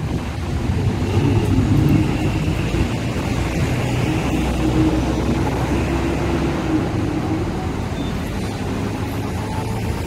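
A CRRC supercapacitor tram passing on street track, heard as a steady low rumble mixed with road traffic noise. A faint rising whine comes in near the end.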